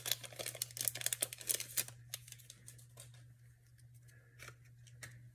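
Clear plastic packet crinkling and tearing open in the hands: dense crackling for about two seconds, then fewer, sparser crackles.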